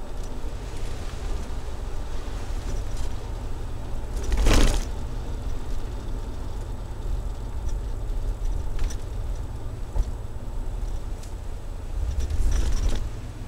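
Ford 351 Windsor V8 exhaust through a single-inlet, dual-outlet Flowmaster Delta Flow 50 series muffler, heard from inside the van's cabin as a steady low drone. Two short, louder rushes of noise stand out, one a little over four seconds in and one near the end.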